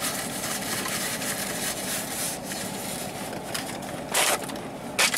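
Paper wrapper crinkling and crunching as a fried chicken sandwich is handled and eaten, with louder crackles about four seconds in and again near the end.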